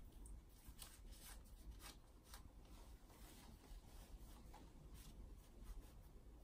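Near silence with faint clothing rustle: a blouse being handled and tucked at the waistband of jeans, four soft swishes in the first half.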